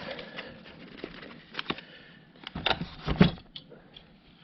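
Handling noise from small metal staples and their packaging: a few sharp clicks and light rattles over a soft rustle, with the loudest clicks in the second half.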